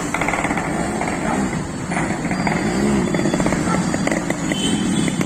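Yamaha RX135's two-stroke single-cylinder engine running with a rapid firing rattle, revved up and back down twice, about one and a half and three seconds in.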